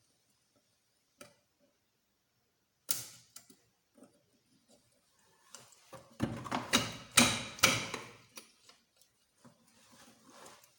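Metal motorcycle engine parts knocking and clattering as they are handled: a couple of single clicks, then a burst of several knocks about six to eight seconds in, and a few softer ones near the end.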